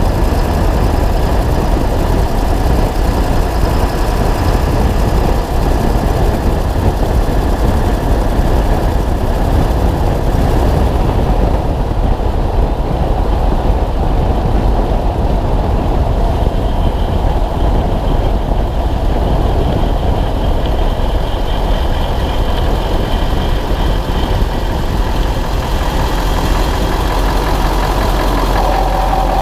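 2000 Ford F-250's 7.3 L Power Stroke V8 turbodiesel running steadily, heard from a camera mounted on the leaf spring under the truck, mixed with road and wind noise. The owner suspects an exhaust leak, heard as a tick.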